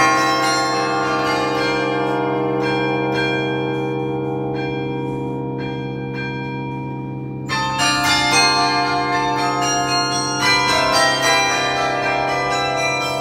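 Carillon bells played from the baton keyboard: after a few struck notes the bells ring on and slowly fade for several seconds with only a few new notes, then quicker playing resumes about seven and a half seconds in.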